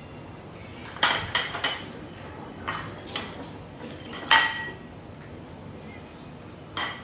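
Hard objects clinking and clattering: a run of sharp knocks, each with a short ring, several close together about a second in, the loudest a little past the middle and one more near the end.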